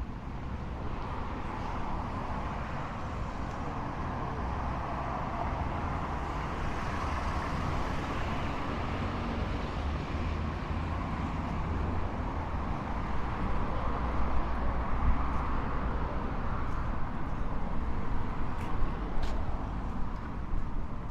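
Street traffic: vehicles passing with a steady engine and tyre hum that swells and fades, with a few sharp clicks near the end.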